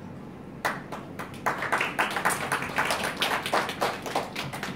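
Audience applauding. A few scattered claps start about half a second in, build into dense clapping, and thin out again near the end.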